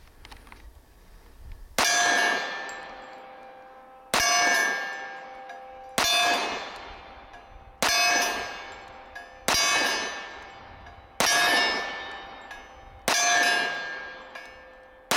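Eight pistol shots from a Devil Dog Arms Commander 1911, about two seconds apart. Each is followed by a steel target ringing with a clear tone that fades over a second or two: a hit on the steel.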